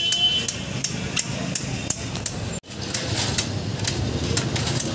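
Light metallic tapping, about two to three sharp taps a second, over a low steady workshop hum. The sound cuts out for an instant a little past halfway.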